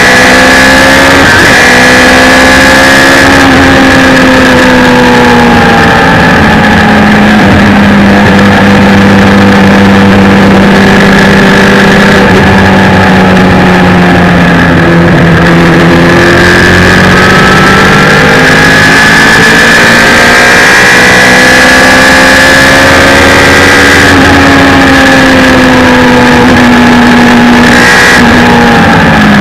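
Suzuki Hayabusa 1300 inline-four motorcycle engine powering a small race car at speed on track, loud throughout, its pitch rising and falling repeatedly as it accelerates out of corners and backs off again.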